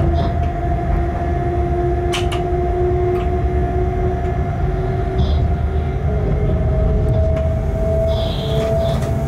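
A locomotive running light, heard from inside the cab: a steady low rumble with a drive whine whose pitch shifts up a little about six seconds in, and a few sharp clicks.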